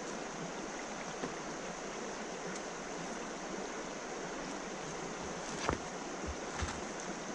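Shallow river flowing over a rocky bed, a steady rushing babble, with two soft knocks near the end.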